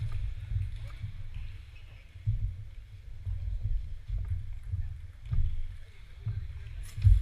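Uneven low rumble buffeting the microphone, with faint clicks of table tennis balls and a sharper ball click near the end.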